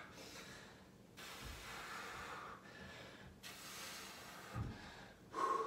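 A man breathing hard through a resistance-band bent-over row, two long breaths with the effort of the set.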